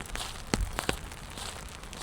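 Rain pattering on wet pavement, with two sharp taps about half a second and a second in.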